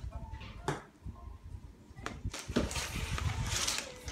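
Handling noise as packs of twisted braiding hair and their plastic packaging are moved about: rustling with several short, sharp crinkles and clicks.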